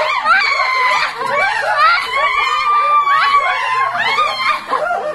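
Several women screaming and squealing excitedly, their voices overlapping with laughter; one long, held squeal in the middle.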